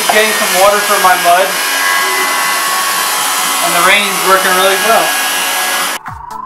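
Heavy rain pouring down, a loud, steady hiss, with voices calling out over it at the start and again about four seconds in. The rain cuts off suddenly near the end, and music with a rising tone and a beat starts.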